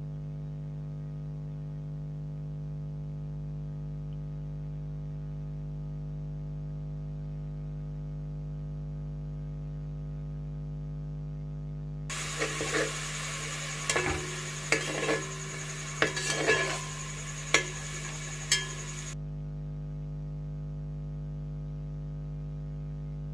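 Steady electrical hum. About halfway through, a metal spatula stirring chopped tomatoes in a metal cooking pot scrapes and strikes the pot, giving a string of sharp clinks over about seven seconds.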